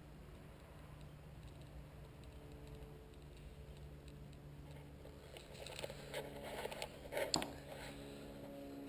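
Barbell sleeve on bronze bushings spinning with a plate, almost silent over a faint steady hum. About five and a half seconds in, a run of clicks and knocks starts, the loudest a sharp knock near seven seconds, as the camera is picked up and handled.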